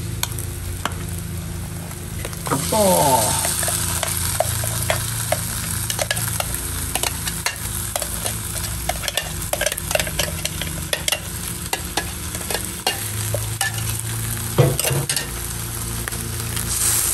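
Lamb pieces sizzling in a frying pan while a spoon scrapes and knocks thick ground paste out of a steel mixer-grinder jar, giving many sharp clicks over the steady sizzle. A brief falling squeak comes about three seconds in, and a louder knock near the end.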